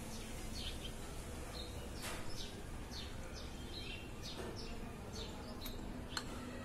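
Small birds chirping in the background: short, high, falling notes repeated irregularly, several a second at times, over a faint steady ambient hum.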